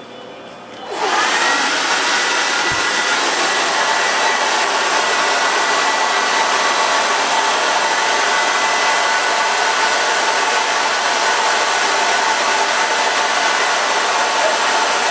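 Handheld hair dryer switched on about a second in, its motor spinning up over a moment and then blowing with a steady, loud whoosh and a faint steady whine.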